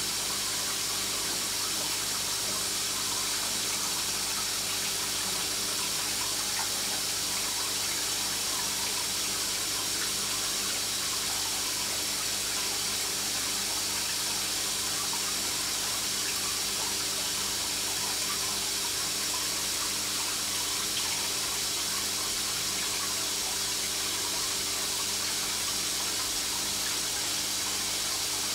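Aquarium equipment running steadily: an even rush of moving water with a low, steady hum beneath it.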